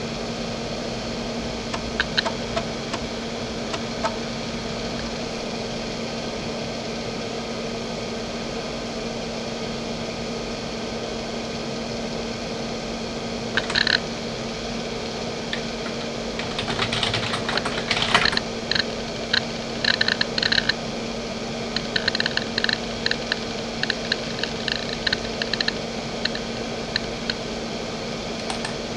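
JVC JDE2042M10-1 2.5-inch hard drive's heads seeking, heard as clicking and chattering over a steady hum. After a few isolated clicks there is a short burst about halfway through, then dense chatter and runs of rapid clicks in the second half as the drive reads data during the DOS-to-Windows 3.1 boot.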